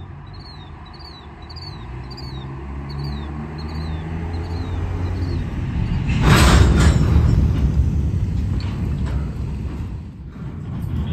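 A freight train of covered hopper cars getting under way: a low rumble builds steadily, then a loud burst of noise about six seconds in as the cars start to roll. Short high chirps repeat about twice a second through the first half.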